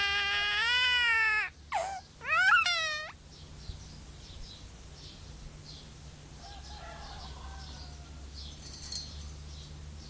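Myna bird imitating a human baby crying: a long, loud wailing cry that breaks off about a second and a half in, then a shorter cry of quick rising wails around the three-second mark, followed by faint chirps.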